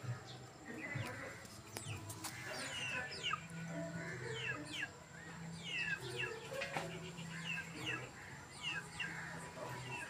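Birds chirping rapidly, many short high falling chirps from about two seconds in, mixed with the clucking of chickens.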